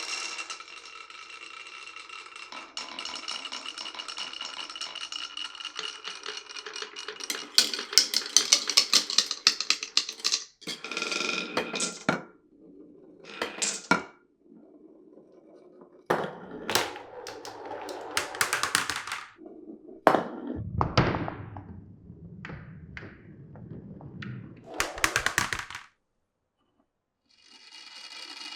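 Glass marbles rolling and clattering down a wooden marble run. A steady rolling sound is broken by a dense run of clicks and knocks about eight seconds in, then by separate short rolls and clacks. The sound drops out completely for about a second near the end.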